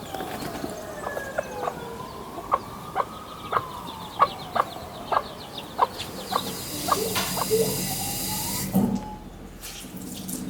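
Chickens clucking: a run of short clucks about twice a second for most of the first six seconds. Under them a distant siren wails slowly, falling, rising and falling again.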